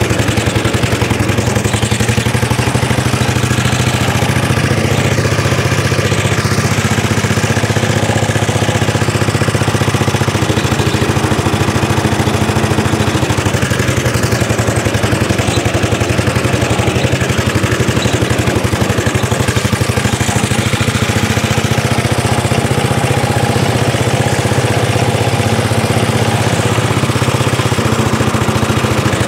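Petrol engine of a 1930s Dennis Z-type cylinder lawn mower running steadily while the mower is driven across the lawn, with a fast, even firing beat.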